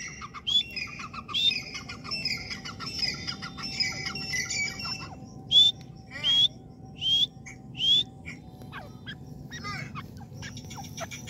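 Grey francolin calls: short, sharp notes that sweep upward, four loud ones in quick succession in the second half, over a busy chatter of high bird calls in the first half.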